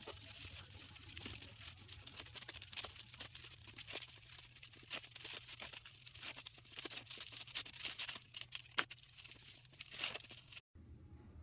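Irregular scratching and small clicks from a dirty motorcycle chain being handled and scrubbed by hand. The sound cuts off suddenly near the end.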